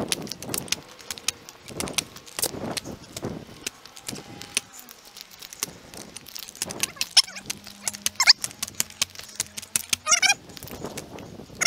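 Tree climber's gear on the trunk: a rapid, irregular run of sharp knocks and metallic jingling from clipped-on hardware and boots working against the bark as he moves.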